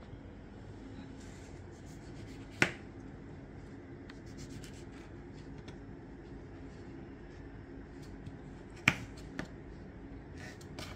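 Kitchen knife knocking on a cutting board as a lime is cut into small pieces: two sharp knocks, about two and a half seconds in and near nine seconds, with faint light clicks between, over a low steady hum.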